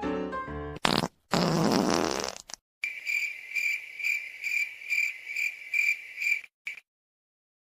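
A wet fart sound, a short burst and then a rasping one lasting about a second, followed by crickets chirping in an even pulse of about two chirps a second for nearly four seconds, then stopping.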